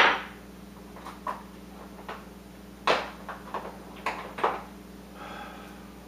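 Scattered sharp knocks and clicks of hand tools being picked through and handled while a woodcarving V-tool is fetched, the loudest about three seconds in.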